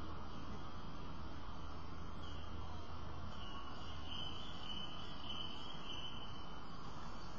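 Steady outdoor background hiss with a low hum, and a faint, high, wavering trill that runs for about four seconds in the middle.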